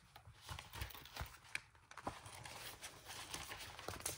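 Paper handling: a notebook insert rustling as its grid-paper pages are opened, with a string of light taps and clicks against the tabletop.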